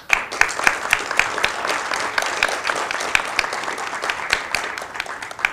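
Audience applauding: many hands clapping densely and steadily, starting suddenly and beginning to die away at the very end.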